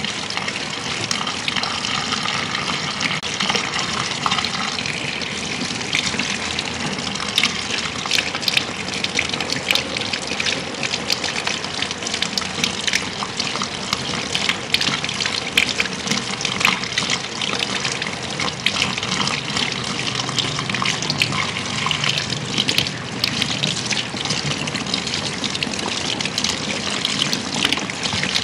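Water running steadily from a handheld shower sprayer and splashing onto hair at a shampoo basin, with scattered small clicks and taps.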